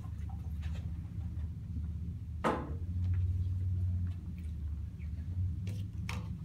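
The removed pump cover is set down with a single sharp knock about two and a half seconds in, over a steady low hum. A few light clicks follow near the end as hand tools are picked up from the workbench.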